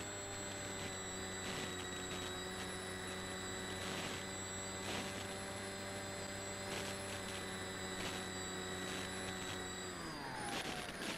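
Electric motor and propeller of a Zeta Phantom flying wing, heard from its onboard camera, running at a steady pitch. About ten seconds in it winds down as the throttle is cut back for its automatic landing.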